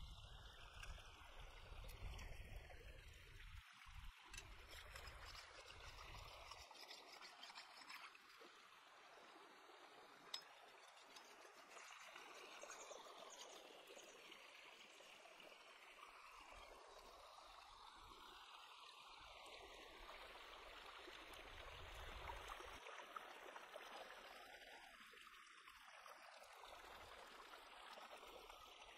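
Shallow stream running over rocks: a faint, steady trickle and babble of water.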